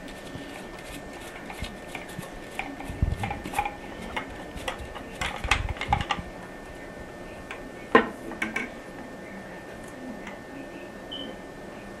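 Light, scattered clicks and taps of metal parts being handled as a ball float is screwed onto the brass float rod of a toilet ball cock, with a sharper knock about eight seconds in.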